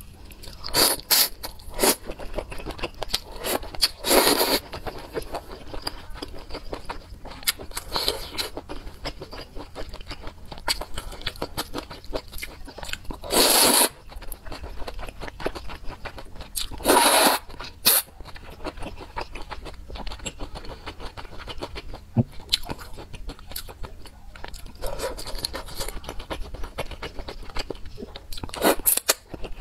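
Person eating spicy soup noodles: loud wet slurps every few seconds, the longest lasting about a second, with chewing and small mouth clicks in between.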